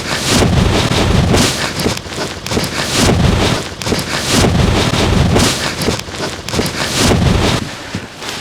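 Wind buffeting the microphone in repeated gusts, a low rumbling rush that surges about once every second or so.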